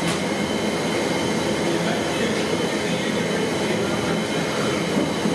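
Steady low mechanical hum and rumble over a constant noisy background, unchanging throughout.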